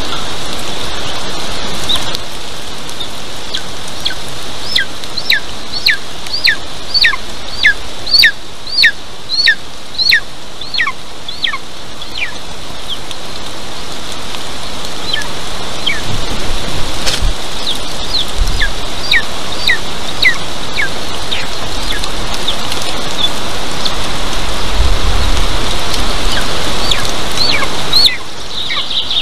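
Golden eagle eaglet begging: runs of high, thin, downward-slurred calls, about one and a half a second, which stop and then start again, over a steady background hiss.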